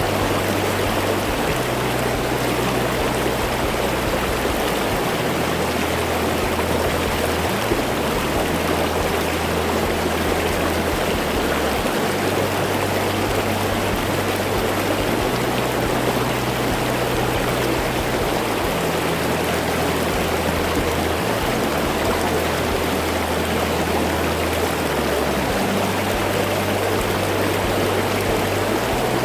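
Mountain valley stream running steadily, a continuous rush of water. Underneath it, low held notes of soft background music change pitch every few seconds.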